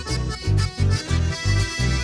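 Chamamé band playing an instrumental passage live: an accordion carries the melody over a bass that pulses about three times a second.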